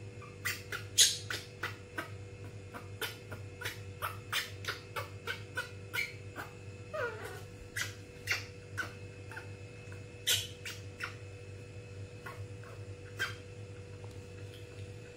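Baby monkey feeding: a run of short, sharp smacking clicks, with one squeak falling in pitch about seven seconds in.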